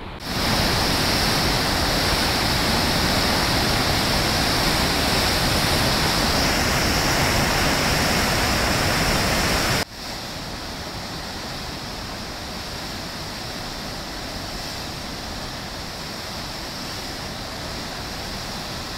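Rivers in flood, the muddy water of their rapids rushing steadily. About ten seconds in, it cuts abruptly to a second flooded river with a quieter, steady rush.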